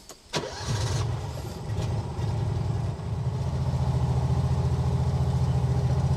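John Deere Gator XUV utility vehicle's engine starting up about half a second in, then running with an even low pulse as the vehicle pulls away slowly.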